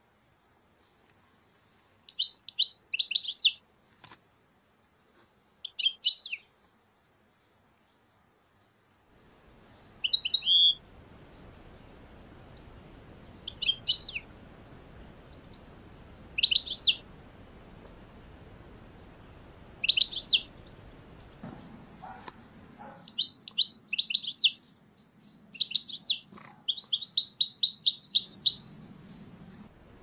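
European goldfinches calling: short bursts of high, quick twittering notes every few seconds, ending in a longer rapid run of notes. Under the calls, a faint steady hiss comes in about a third of the way through.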